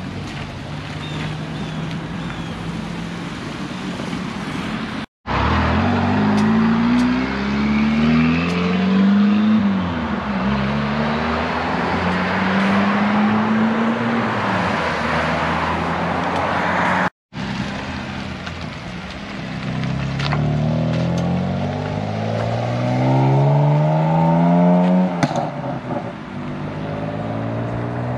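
Cars accelerating away across a wet road. Their engines rev up through the gears, rising in pitch and dropping back at each shift, with a steady hiss from tyres on the wet pavement and a couple of sharp pops near the end.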